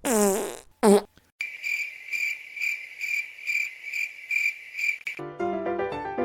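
A fart sound effect that drops sharply in pitch, followed by a second, shorter one. Then comes a cricket-chirp sound effect: a high, even chirping pulsing about two to three times a second for about four seconds.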